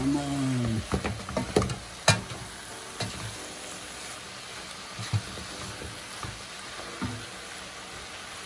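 Chopped callaloo greens and vegetables sizzling in a large pot as a wooden spoon stirs them. The spoon knocks against the pot every so often, loudest about two seconds in.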